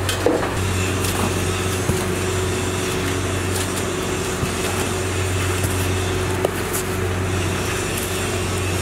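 Steady low mechanical hum with a constant tone above it, over an even background noise, with a few faint clicks.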